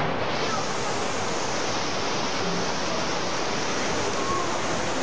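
Steady rushing noise of fast-flowing floodwater pouring through in a torrent.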